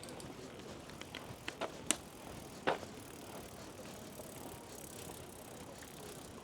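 Quiet outdoor street ambience with a handful of sharp clicks and knocks about one to three seconds in.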